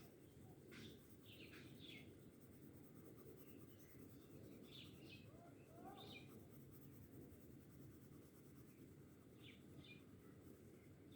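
Faint scratching of a colored pencil on paper as feathers are shaded in dark green, coming as short strokes scattered through, over a low steady background hiss.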